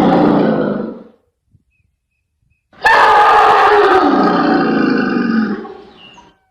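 Asian elephant calling loudly, two long calls with falling pitch: the first tails off about a second in, and after a silent gap a second starts abruptly and sinks lower before fading near the end.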